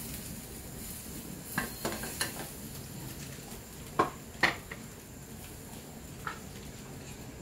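Chunks of chayote slid off a plate into a wide metal pan of boiling chicken broth, with clinks of the plate and utensils against the pan. A few light clinks come early, then two louder ones in quick succession about four seconds in, over a steady hiss of the boiling broth.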